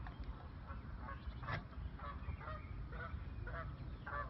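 Geese honking across the water, short calls repeated about twice a second, over a low rumble of wind on the microphone.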